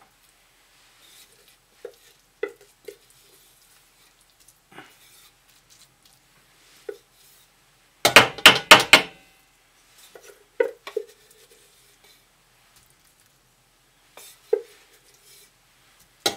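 A metal spoon scraping and clinking against a metal canteen cup and pie pan while sticky rice is dished out, with single clinks that ring briefly. About eight seconds in comes a quick run of about six loud, sharp knocks, typical of a spoon rapped on a rim to shake sticky rice loose.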